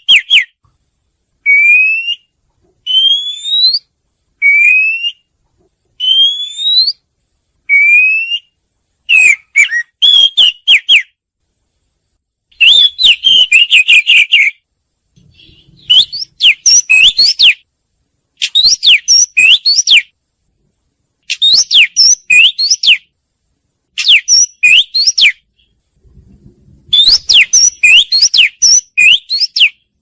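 Oriental magpie-robin song played as a decoy call for luring magpie-robins. First comes a series of single rising whistles, about one every second and a half, then fast phrases of chattering whistled notes with short pauses between them.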